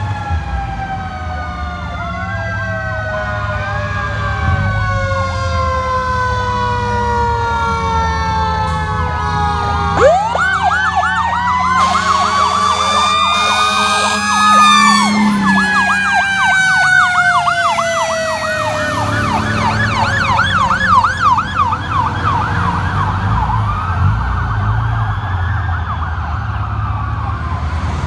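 Fire truck sirens: a mechanical siren winds slowly down in pitch, and about ten seconds in an electronic siren starts up, wailing and then switching to a fast yelp, over a low engine rumble.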